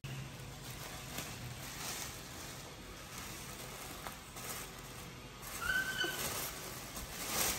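Plastic shopping bag rustling faintly as fruit is taken out of it, with a short high-pitched squeak about six seconds in.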